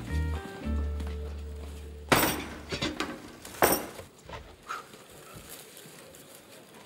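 Background music that stops about two seconds in, followed by two sharp, ringing clinks about a second and a half apart, like glass or crockery being knocked, then a few faint clicks.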